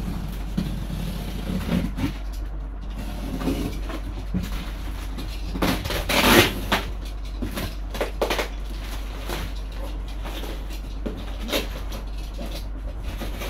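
Packaging being handled in a large cardboard box: irregular rustling of plastic wrap and tape with scrapes and knocks of cardboard, and a louder rasping burst about six seconds in. A low steady hum runs underneath.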